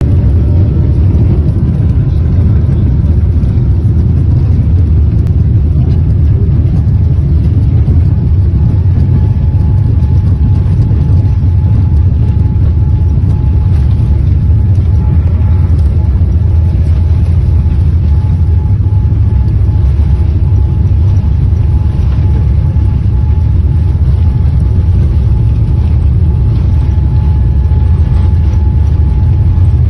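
Boeing 787 Dreamliner jet engines at takeoff, a loud steady low rumble with a faint steady whine over it.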